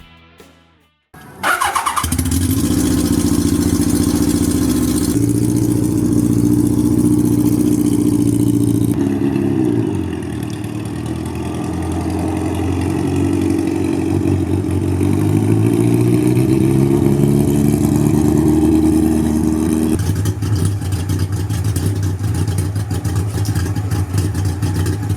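1979 Kawasaki KZ1000's air-cooled inline-four running loud under way, its pitch dropping and then climbing steadily as it pulls through the revs, with abrupt jumps in the sound a few times.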